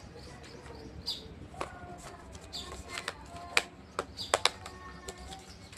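Hands handling the charger's packaging: scattered sharp clicks and crinkles, the loudest a few just past the middle. Short bird chirps sound in the background.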